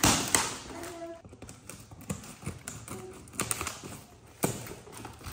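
Cardboard shipping box being handled and cut open with scissors: irregular taps, scrapes and crackles of cardboard and packing tape, loudest at the very start.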